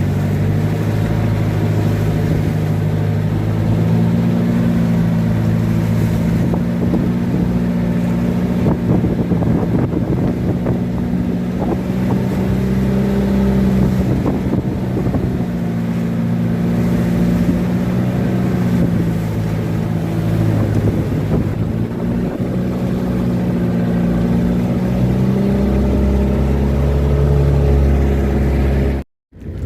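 A large engine droning steadily while under way, its pitch shifting now and then, with wind on the microphone. The sound cuts out for a moment near the end.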